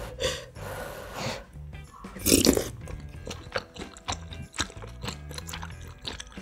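Breath blown over a spoonful of hot spicy ramyun and dumpling to cool it, then a brief loud slurp as it goes into the mouth about two seconds in. This is followed by close-miked chewing of noodles and dumpling, with many small wet mouth clicks.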